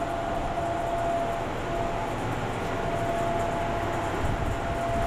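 Walk-in cold room's evaporator fans running: a steady whir of moving air with a constant mid-pitched hum.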